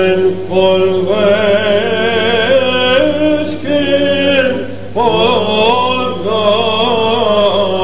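Male cantor chanting a Byzantine Orthodox hymn, a slow melismatic solo line with wavering ornaments and a brief breath about five seconds in, over a steady low drone held underneath (the ison).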